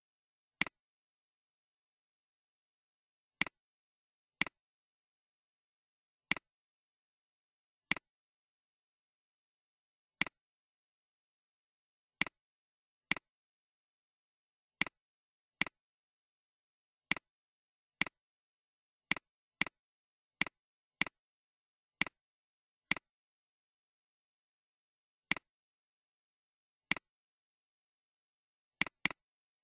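Computer mouse clicking: about twenty single, sharp clicks at uneven gaps of half a second to a few seconds, with dead silence between them.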